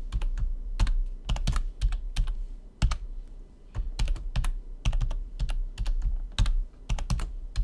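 Typing on a computer keyboard: a passphrase being entered, a quick irregular run of keystrokes with short pauses between bursts.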